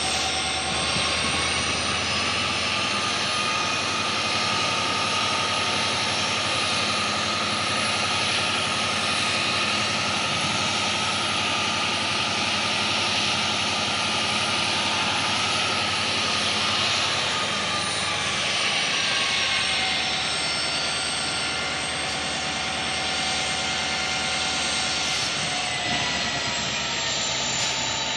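WDG4 diesel-electric locomotive (16-cylinder two-stroke turbocharged diesel) running with a steady, loud hum and turbocharger whine. The pitch rises a little a few seconds in and sinks again about two-thirds of the way through.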